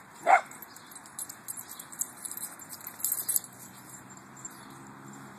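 A dog barks once, sharply, just after the start. Scattered light clicks and rattles follow for a few seconds.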